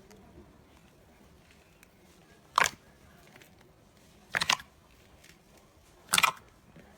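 Slime being pressed and worked by hand, giving three short crackling pops a couple of seconds apart.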